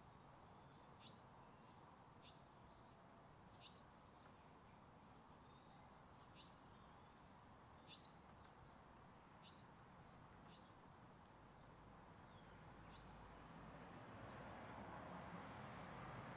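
Faint bird chirping: about eight short, high chirps spaced irregularly one to three seconds apart over a low hiss that grows a little louder near the end.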